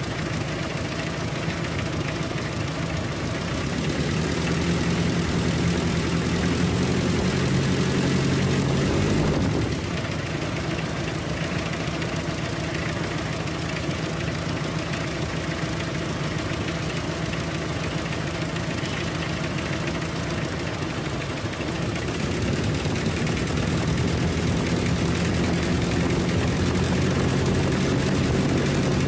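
Toyota 2C four-cylinder diesel engine running at idle. It is raised to a faster, louder speed about four seconds in and drops back abruptly after about five seconds. It is raised again about twenty-two seconds in and held until near the end.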